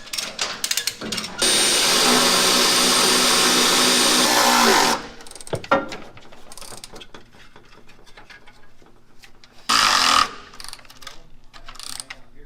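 Power drill running steadily for about three and a half seconds, then a second short run of under a second near the end, with scattered metallic clicks and knocks in between, as holes are drilled for the liner hardware.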